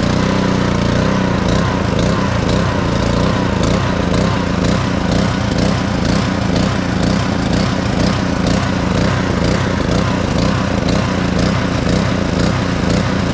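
Honda GCV160 single-cylinder four-stroke engine on a pressure washer running steadily just after a choked start. It runs after a carburetor cleaning and reinstall, which cures its crank-no-start fault.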